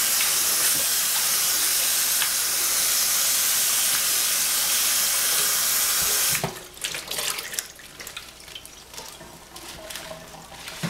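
Kitchen tap water running steadily onto leafy greens in a stainless steel sink, shut off suddenly about six seconds in. After that come light scattered clicks and rustles of the wet leaves being handled in the sink.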